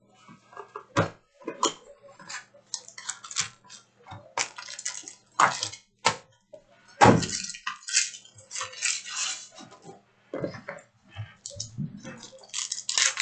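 Trading-card packs and cards being handled: an irregular run of crinkles, snaps and taps, the loudest about seven seconds in.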